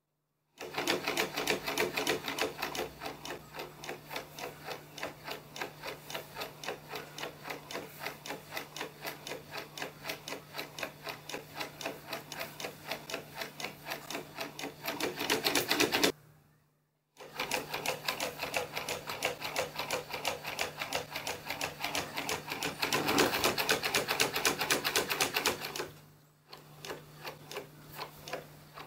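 Timberkits wooden dragon automaton running on its small electric motor and gear drive: the wooden linkages and gears clack in a rapid, even rhythm over a steady motor hum. It breaks off for about a second partway through, then starts again, louder for a few seconds before going softer near the end.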